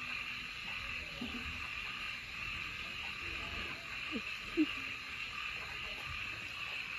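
Steady high-pitched chorus of night insects, an even unbroken drone.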